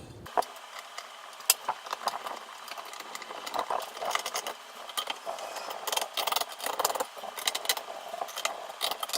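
Scattered clicks, light rattling and small knocks of plastic and metal as a stock AMD CPU cooler is pressed down and fastened onto the motherboard's mounting bracket, a job that takes quite a bit of pressure.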